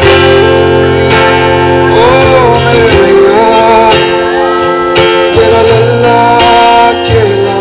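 Live band playing a song: a man singing, holding some notes, over acoustic guitar, electric guitar and drums.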